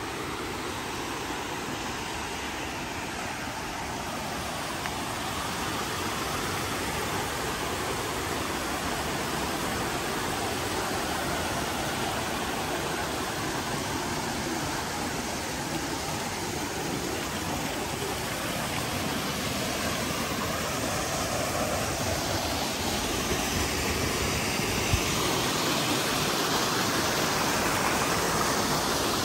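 River water rushing over rocks, a steady noise that grows gradually louder.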